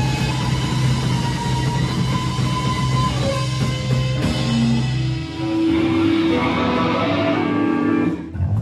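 Live rock band playing electric guitars, bass and drum kit, with long held, ringing notes. The low bass note stops about five seconds in while higher guitar notes ring on.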